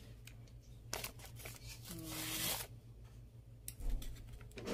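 Graham crackers being laid into a plastic food container: light taps and clicks of the crackers against the plastic, with a short scraping rustle about two seconds in.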